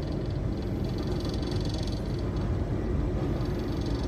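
Steady hum and low rumble inside a passenger train carriage standing at a station, the train idling with its machinery running.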